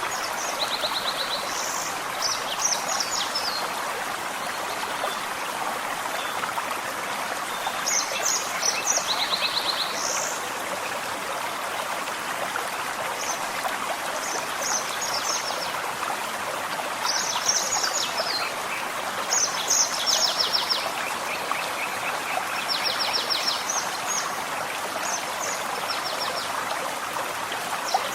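Gentle forest stream running steadily, with birds singing short high trills and chirps in bursts every few seconds over it.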